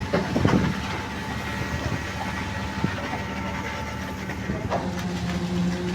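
Construction machinery running steadily with a constant hum, and a few clattering knocks in the first second.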